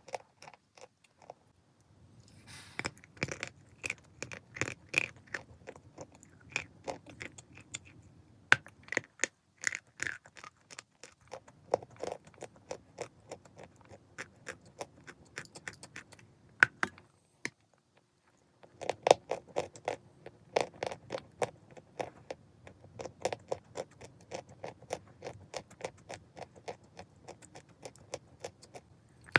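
Pieces of Glinkamel chalk being bitten and chewed close up: a long run of crisp crunching and crackling, with a brief pause a little past halfway before the chewing starts again.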